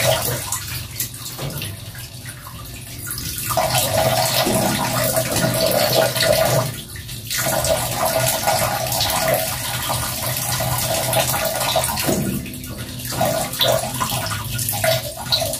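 Water running and splashing into a plastic basin of soapy laundry water, steady apart from a couple of brief lulls.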